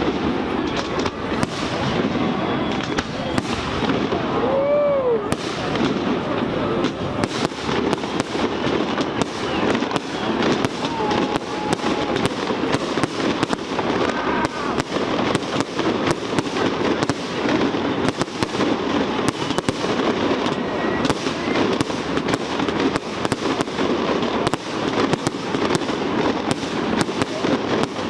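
Fireworks display: a dense, unbroken run of bangs and crackles, with the murmur of a watching crowd underneath.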